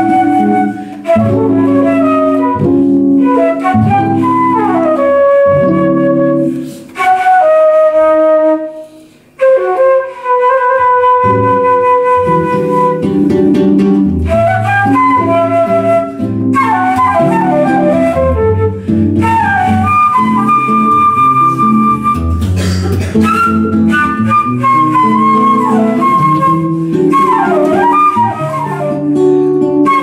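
Jazz duo: a woodwind plays a slow melody over chords on an archtop jazz guitar, with a brief break in the sound about nine seconds in.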